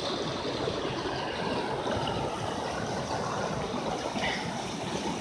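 Stream water running, a steady even rushing noise.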